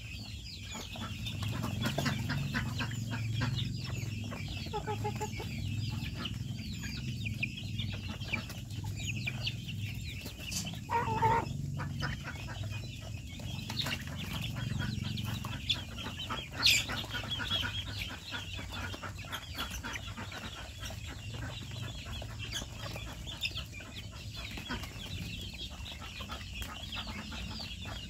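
Flock of chickens with chicks: a continual chorus of high, short peeps, with occasional hen clucks and a louder squawk about eleven seconds in. A single sharp click sounds near seventeen seconds.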